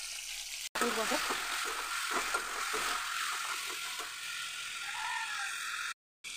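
Oil sizzling in an iron kadai as food fries, with a metal ladle scraping and clicking against the pan while vegetables are stirred.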